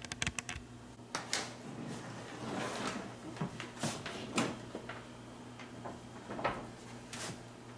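Handling noise from a flat-panel TV being lifted and set on a wooden TV stand: a quick run of clicks at the start, then scattered knocks and light thumps as its plastic feet meet the wood.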